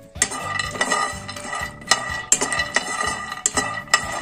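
A metal spoon stirring whole almonds in a dry nonstick pan: scraping along the pan with irregular clicks and knocks as the nuts tumble against the pan and spoon.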